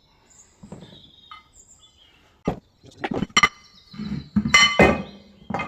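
Steel striking steel with a ringing, clinking tone: a few single knocks about two and a half to three and a half seconds in, a quick cluster around four to five seconds, and one more strike just before the end. This is the work around a Land Rover wheel hub's freshly knocked-out bearing race.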